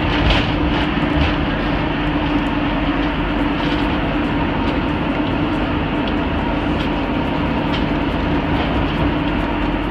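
Steady road and engine noise inside a diesel Mercedes motorhome driving at highway speed: an even drone with a low steady hum and a few faint ticks.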